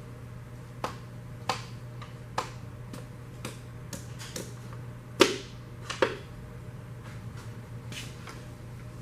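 A string of sharp, irregularly spaced clicks and knocks from hand tools and engine parts being handled during a teardown, the loudest two about five and six seconds in, over a steady low hum.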